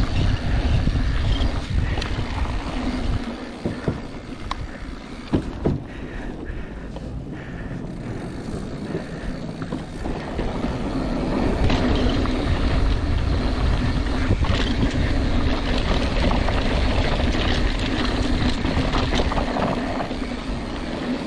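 Mountain bike descending a dirt trail, heard from a handlebar-mounted camera: wind buffeting the microphone and tyres rolling over dirt, with a steady low buzz from the bike that grows stronger in the second half. Several sharp knocks and rattles come from the bike over bumps a few seconds in.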